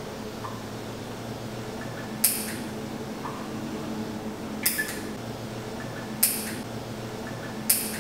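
Fingernail clipper snipping nails: four sharp clicks about a second and a half apart, the second one a quick double click, over a steady room hum.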